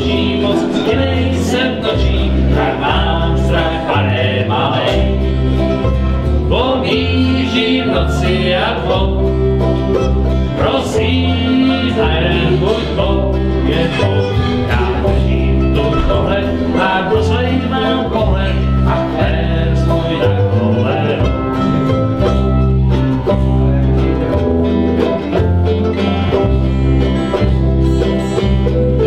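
Small acoustic string band playing a bluegrass-style tune: strummed acoustic guitar and mandolin over a steady bass line, with a wavering melody on top.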